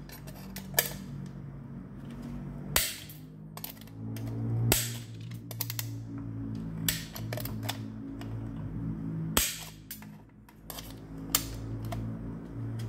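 Hand-operated nibbler shears biting through 1.5 mm steel plate: sharp metallic snaps at irregular intervals, each one a squeeze of the handles punching out a chip. A low steady hum runs underneath.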